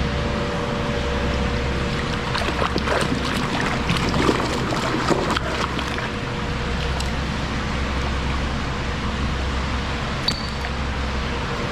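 Creek water trickling and pouring over a steady low rumble, with a spell of scattered sharp clicks and rattles about two and a half to six seconds in.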